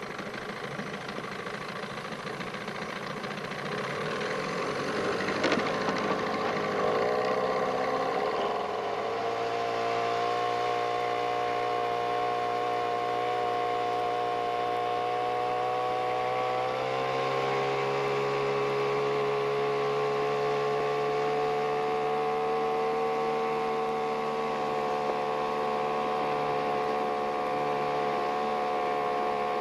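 Small boat's gasoline motor speeding up from idle over a few seconds, then running steadily at cruising speed. Its pitch rises a little once more about halfway through.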